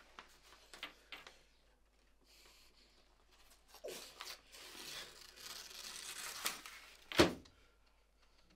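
A sheet of drawing paper torn up by hand: light rustling at first, then a long tear starting about four seconds in and lasting some three seconds. A single loud sharp thud comes about seven seconds in.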